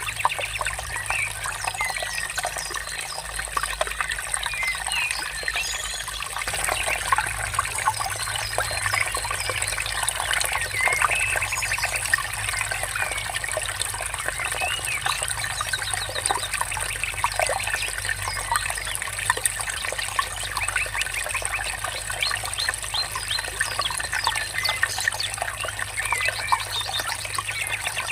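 A stream trickling and babbling steadily, with many small birds chirping and singing over it throughout.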